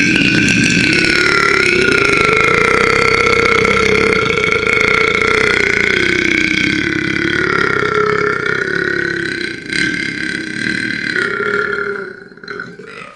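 One very long, loud, continuous burp held for about twelve seconds, its pitch fairly steady with slow wavering, breaking into a few short ragged bits near the end before it stops.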